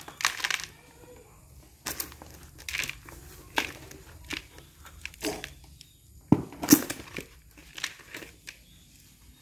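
Handfuls of loose potting medium being scooped from a plastic bucket and dropped into a plastic pot: irregular crumbly rustling and scraping, loudest about six seconds in.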